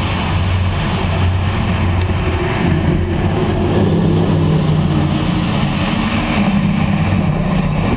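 Motor vehicle running, heard from inside its cabin: a steady low engine hum with road noise, the engine note stepping up in pitch about three seconds in.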